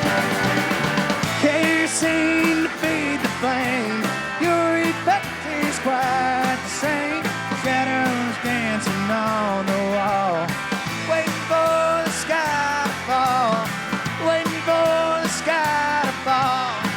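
Live country-rock band playing, with a steady drum beat under a wavering, sliding lead melody line.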